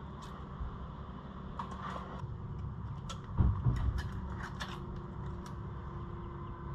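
Rubber vent hose and hand tools being handled while a hose is measured for cutting: scattered small clicks and ticks, with a low thump about three and a half seconds in.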